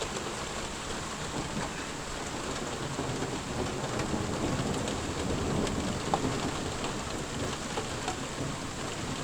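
Rain falling steadily during a thunderstorm, with a low rumble of thunder swelling about halfway through.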